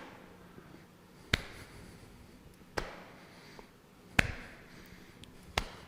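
Cupped hands lightly patting the body as the arms swing from side to side in a qigong warmup: four soft slaps about a second and a half apart.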